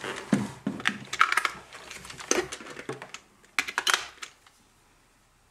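AA batteries clicking and clattering into the plastic battery compartment of a toy remote-control tracked excavator, with knocks from the hard plastic body being handled; the clicks stop about a second before the end.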